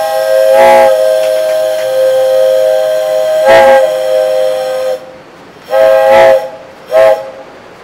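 Passing train's horn sounding a chord of several notes: one long blast of about five seconds, then two short blasts near the end.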